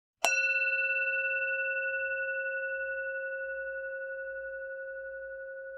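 Countdown timer's end alarm: a single struck, bell-like tone that sounds suddenly and then rings on, slowly fading with a slight wobble.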